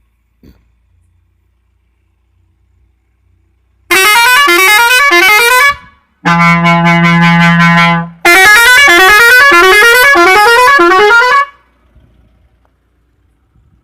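Musical air horn fitted to a Mahindra Tourister van, sounded in three loud blasts. The first and last play repeating tunes of quickly rising notes; the middle one is a steady blaring chord with a strong low note.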